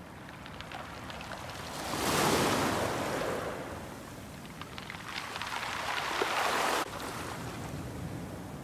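Small waves washing onto a pebble beach, swelling twice, the second wash cutting off suddenly about seven seconds in, with faint clicking of stones.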